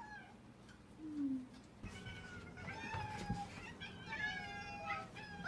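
Domestic cat meowing repeatedly at feeding time: three long, drawn-out meows that hold a fairly steady pitch, with a short low call and a couple of light knocks before them.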